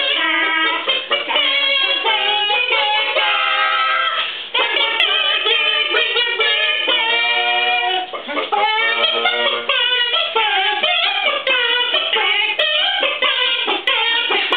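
A small group of voices singing a cappella in doo-wop style.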